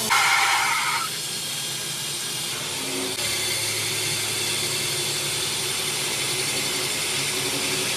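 A belt-driven electric tool-post grinder runs on a lathe, its wheel grinding the steel face of a Mercedes truck clutch pressure plate to resurface it, a steady grinding noise over the motor's hum. A louder, higher burst of noise comes in the first second.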